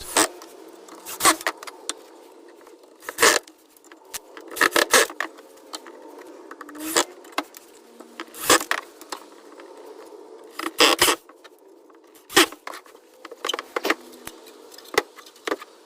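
Metal coat hooks clinking and clattering: sharp, irregular metallic clicks, some in quick clusters, over a faint steady hiss.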